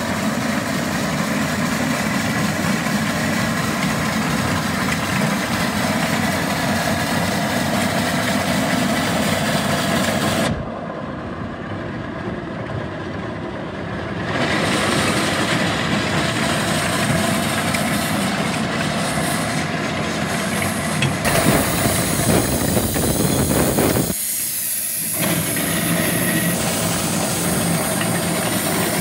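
Small steam engine of a ride-on steam lawnmower running, with a steady hiss of escaping steam. The sound turns duller and quieter about ten seconds in, then returns to full about four seconds later, with another brief dip near the end.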